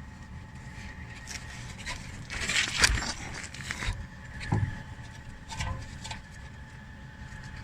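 Metal tools and brake parts being handled: a burst of scraping and clinking with a sharp knock about three seconds in, then two single knocks over a steady low background hum.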